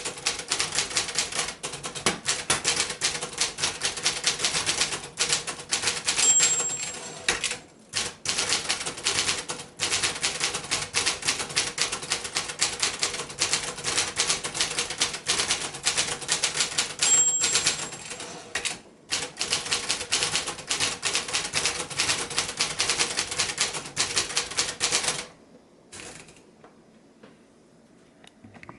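Brother-made Escort 350 manual portable typewriter being typed on in rapid, continuous keystrokes. A short high ring, the margin bell, sounds twice, each followed within a second or two by a brief break in the typing for the carriage return. The typing stops a few seconds before the end.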